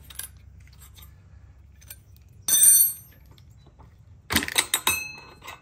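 Metal-on-metal clinks and clatter from a wrench, bolt and vise grips as the crankshaft pulley bolt is loosened and taken out of a mower engine. There is one louder ringing clatter about two and a half seconds in, and a quick run of sharp clinks near the end.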